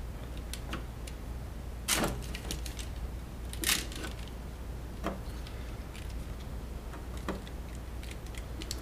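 Sharp clicks and knocks of hand tools at work on a wire, a handful spread a second or two apart, the loudest about two seconds and nearly four seconds in, over a low steady hum.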